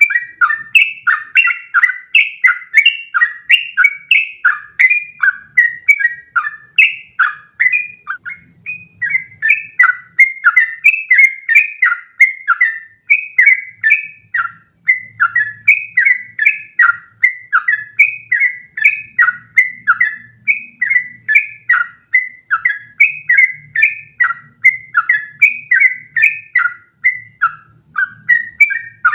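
Yellow-vented bulbul (trucukan) singing a long, unbroken run of short, bubbling whistled notes, a few per second: the rapid 'ropel' song kept up without a pause.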